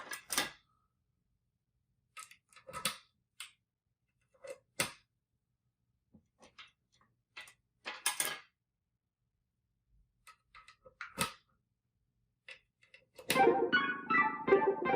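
Scattered single clicks and knocks from handling the controls of a Moog Subharmonicon semi-modular analog synthesizer, then near the end the synthesizer starts playing a sequenced run of pitched notes.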